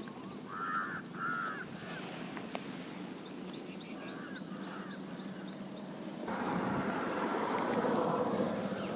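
A crow cawing outdoors, three short caws near the start and three more about four to five seconds in. From about six seconds in, a louder rough noise covers the background.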